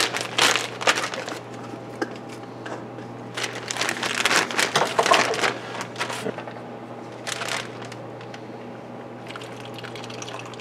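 Plastic bag crinkling in several bursts as fajita marinade is poured from a bowl over the steak inside it.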